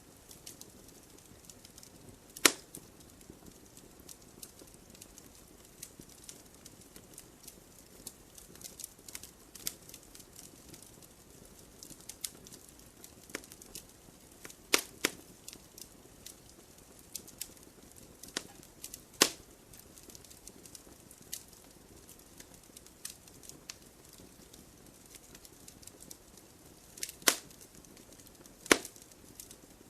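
Campfire crackling: a continual scatter of small sharp ticks over a faint hiss, broken by a handful of louder pops from the burning wood.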